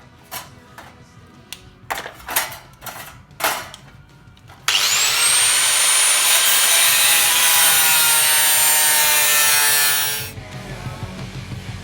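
Scattered knocks and clicks, then a handheld power tool starts with a high whine that rises and holds while it cuts or grinds for about five seconds before stopping.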